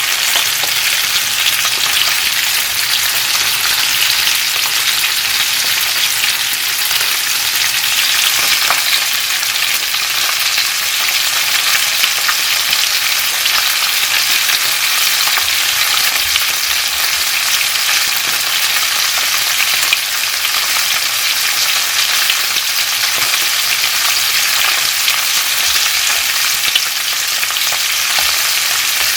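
Flounder frying in oil in a pan: a steady, dense sizzle with a fine crackle and occasional small pops.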